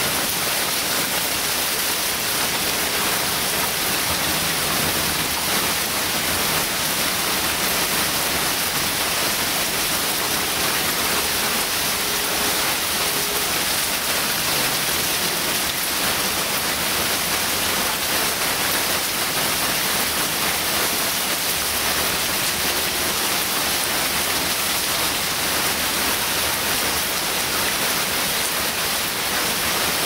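Heavy rain pouring down steadily, a constant even hiss of rain on the road, lawns and parked cars.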